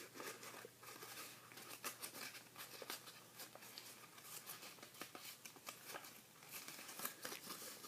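Faint rustling and crinkling of a sheet of origami paper being folded into fan pleats along its creases, a scatter of small irregular crackles.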